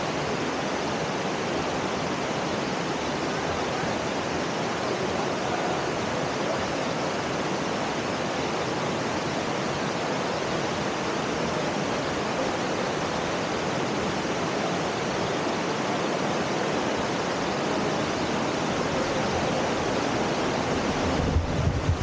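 Steady rushing of river water, an even hiss with no breaks, with a few low thumps near the end.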